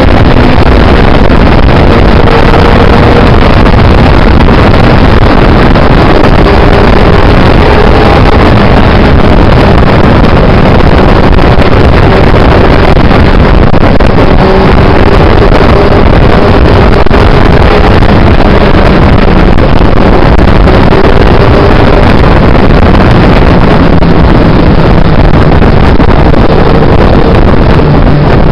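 Heavy wind rush over the microphone with the 1992 Yamaha FZR600's inline-four engine running underneath at road speed, its pitch drifting gently up and down and falling near the end as the bike slows.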